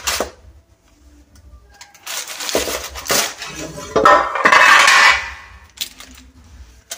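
Metal loaf tin knocking and clattering on a wooden chopping board as it is lifted off a freshly baked loaf, with the loudest clatter about four seconds in.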